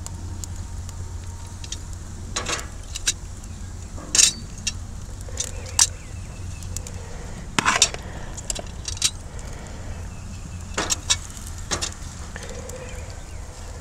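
Metal tongs clicking and scraping against an expanded-metal grill grate as chicken pieces are set down, about a dozen sharp clinks spread out over a steady low rumble.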